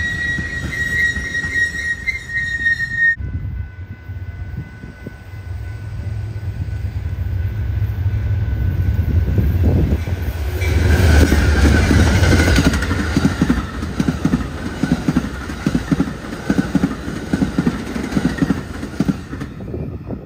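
A train's wheels squealing in one steady high tone, cut off abruptly about three seconds in. Then an Amtrak passenger train led by a GE P42DC Genesis diesel comes past at speed: the engine's rumble builds to its loudest about ten seconds in, with a falling squeal as it passes, and the cars' wheels follow in a regular clickety-clack over the rail joints.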